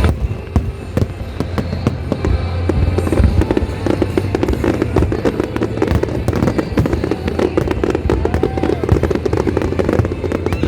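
Fireworks display going off in a dense, continuous run of bangs and crackles, many a second, with music playing underneath.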